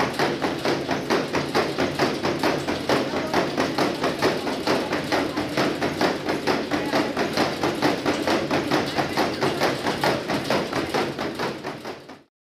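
A horse's hooves beating on a moving treadmill deck as it canters, a fast, even rhythm of knocks, several a second. It fades and stops about a second before the end.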